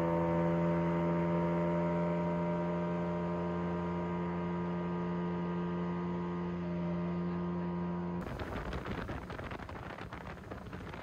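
Outboard motor of an aluminium tin boat running at speed as the boat pulls away over the water, a steady hum that slowly fades. About eight seconds in it gives way abruptly to wind buffeting the microphone aboard the moving boat, with the motor underneath.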